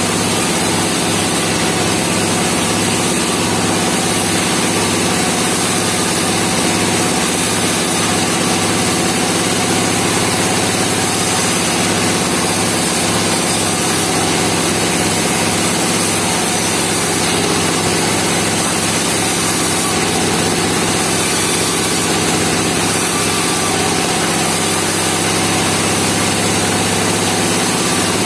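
Mobile bandsaw sawmill running steadily, its engine at a constant speed with no change in load.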